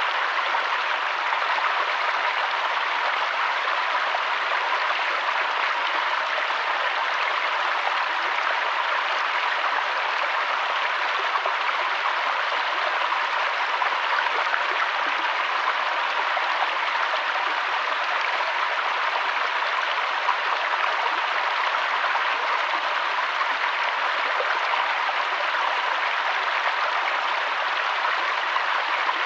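Mountain waterfall and stream: water rushing steadily in an even, unbroken hiss.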